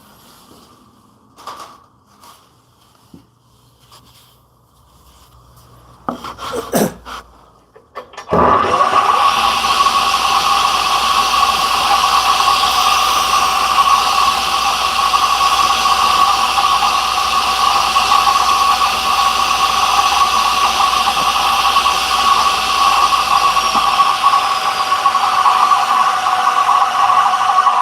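A few light knocks as the workpiece is set, then a table saw is switched on about eight seconds in. It spins up quickly and runs steadily with a strong whine.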